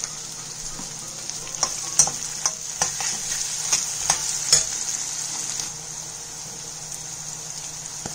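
Onions and black peas frying in oil in a kadhai with a steady sizzle, stirred with a metal spatula that scrapes and clicks against the pan several times between about one and a half and five seconds in.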